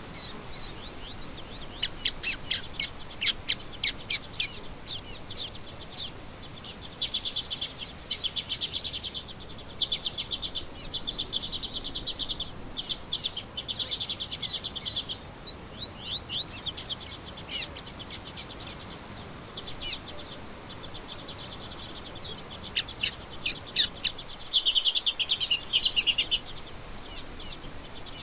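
Songbirds chirping and singing, sharp short calls mixed with several rapid trills of quickly repeated notes, over a faint steady background hiss.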